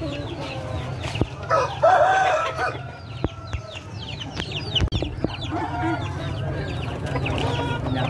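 Many chickens in bamboo market crates clucking and calling over and over, with a louder rooster crow about two seconds in, over a steady low hum.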